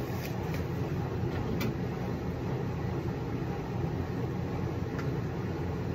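Steady low mechanical rumble, even throughout, with a few faint light clicks.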